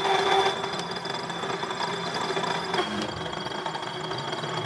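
Metal lathe running, a single-point tool cutting the internal thread of a large steel ring held in the spinning chuck: a steady machine hum with a high whine, whose pitch shifts slightly about three seconds in.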